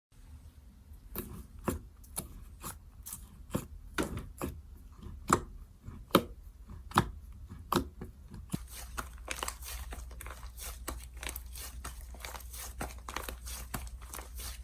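Slime being squeezed and stretched by hand, giving sharp clicks and pops, about one or two a second. A little over halfway through these give way to a denser crackle.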